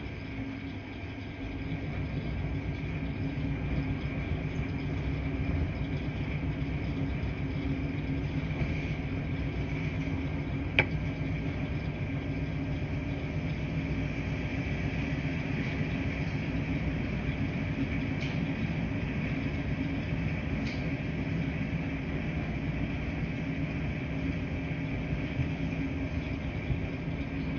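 Laundry-room machines running: a steady low hum and rumble with a faint higher whine, and a single sharp click about eleven seconds in.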